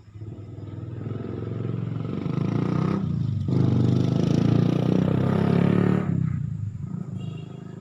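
A motor vehicle's engine passes close by, growing louder, dipping briefly about three seconds in as if changing gear, then fading away after about six seconds.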